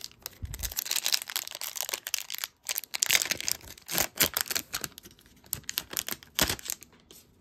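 Foil wrapper of an O-Pee-Chee hockey card pack crinkling and tearing as it is ripped open by hand: a dense run of crackles with several sharper rips. A soft low thump comes just after the start.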